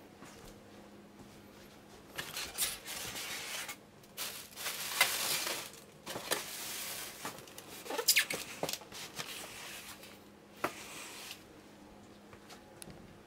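Handling noise close to the microphone: bursts of rustling and scraping with sharp clicks and squeaks, in several stretches. A faint low hum under it stops with a click near the end.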